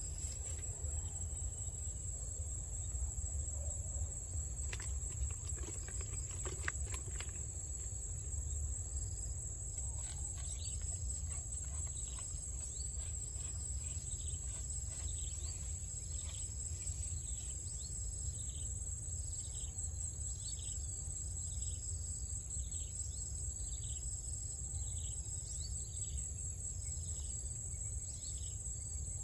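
Insects trilling, a steady high-pitched chorus over a low rumble. About a third of the way in, a short falling chirp starts repeating about every second and a half.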